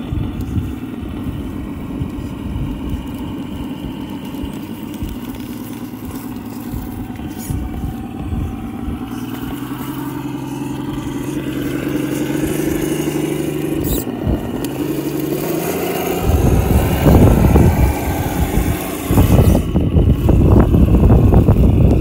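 SCX10 RC rock crawler's electric drivetrain whining as it creeps over rocks, its pitch shifting with the throttle. In the last few seconds, wind buffets the microphone with loud low rumbling.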